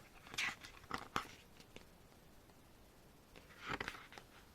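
Pages of a photo book being turned and handled: a few short, faint paper rustles, about half a second in, at about a second, and again near the end.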